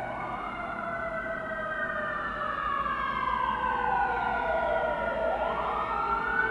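Several emergency vehicle sirens wailing together, overlapping tones slowly falling in pitch and then rising again near the end.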